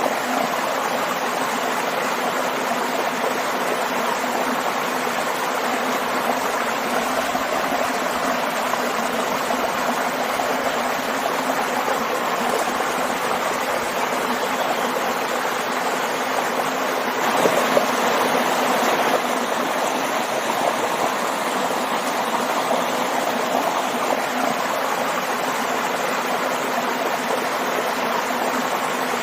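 Waterfall and stream water rushing and splashing as a steady, continuous wash of sound, swelling a little louder for a couple of seconds about two-thirds of the way through.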